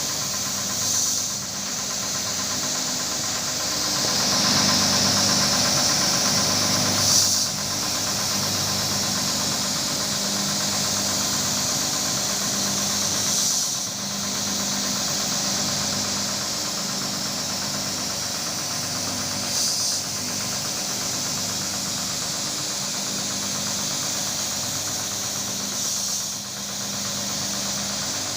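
Motor-driven carpet-washing machine running steadily, a hum under a hiss. A short surge comes about every six seconds, five times.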